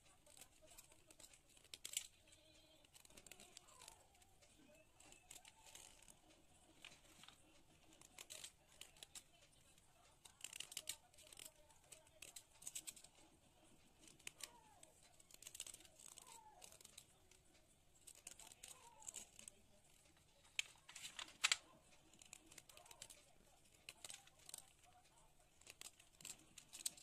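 A small knife blade scraping and shaving a stick of white school chalk, making short, irregular scratchy crunches as the chalk flakes off.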